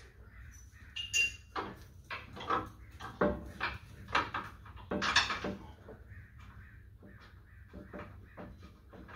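Irregular metal knocks and clinks as a sway bar and its end link are worked into place, a quick run of sharp strikes, some briefly ringing, in the first five seconds, then sparser.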